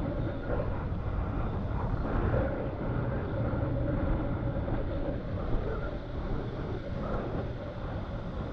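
Ocean surf washing up onto a sandy beach, a steady rushing wash, with wind buffeting the microphone.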